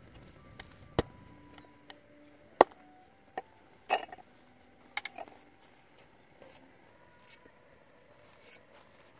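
Knife blades cutting green stems on a wooden cutting board: sharp, irregular knocks of the blade against the board, most of them in the first five seconds or so, then only faint ticks.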